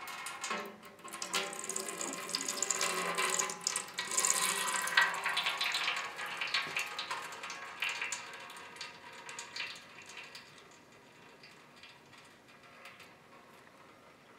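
Sector shaft of a Ford power steering gearbox being worked out of its cast-iron housing: irregular metal clicking, scraping and rattling, loudest about four to six seconds in and dying down after about ten seconds.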